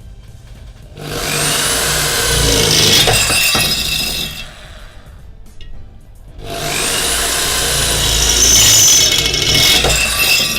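Bosch GSB 13 RE corded drill boring a 5 mm bit through square steel box-section tube, in two runs of about three to four seconds each. Each run opens with the motor whining up to speed, then holds steady as the bit cuts into the steel.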